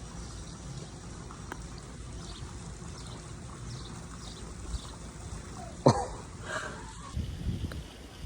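Steady trickle of running water, with a single sharp click of a putter striking a golf ball about six seconds in.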